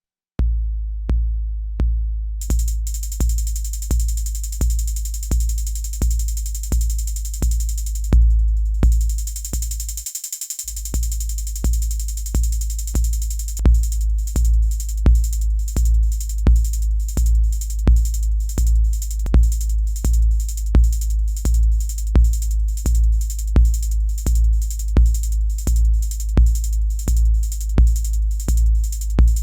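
Eurorack modular synthesizer playing a synthesized drum pattern: a steady electronic bass drum at about two beats a second, with a hissing hi-hat-like noise layer coming in about two seconds in. The kick drops out for a moment near the middle, and about halfway through a pitched mid-range part joins and the rhythm gets busier.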